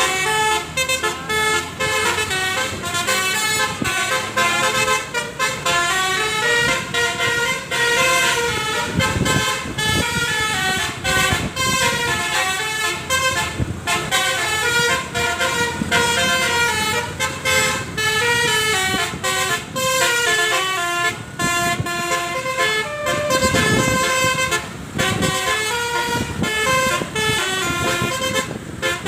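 Tour bus 'telolet' musical air horns playing a fast melody, stepping from note to note without a break.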